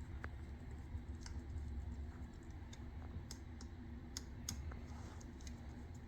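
Scattered light clicks and taps, irregularly spaced, of small parts and a screw being handled during hand assembly work, over a low steady hum.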